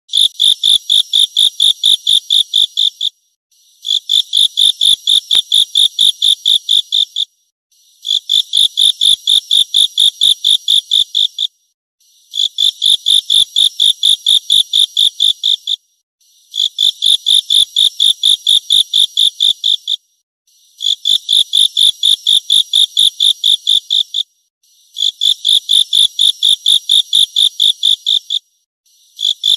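Stridulating insect, given as a grasshopper, calling in regular bouts of rapid, evenly spaced pulses, roughly five a second. Each bout lasts about three seconds with a short pause before the next, and the bouts repeat alike throughout.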